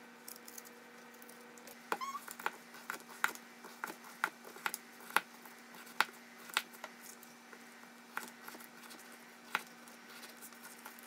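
Kitchen knife chopping through raw butternut squash onto a plastic cutting board: a series of sharp, irregular knocks, about one or two a second, over a faint steady hum.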